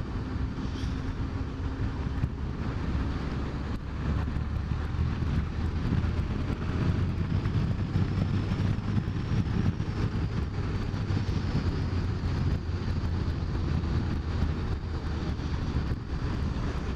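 Motorcycle engine running steadily at cruising speed, mixed with rushing wind and road noise.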